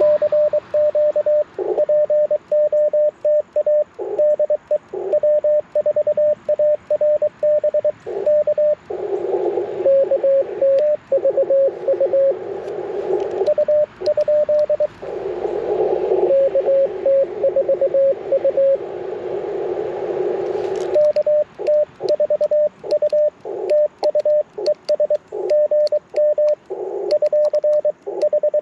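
Morse code from an Icom IC-705 transceiver: the operator's own keyed sidetone, a steady tone sent in quick dits and dahs, alternating with a slightly lower-pitched answering station heard inside the hiss of the receiver's narrow CW filter, twice, about nine and fifteen seconds in. Faint clicks of the paddle key go with the sending in the later part.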